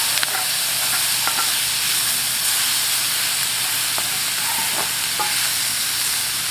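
Shaved beef, bell pepper and onion frying and sizzling in a skillet as they are stirred with a spatula, which scrapes and clicks against the pan a few times.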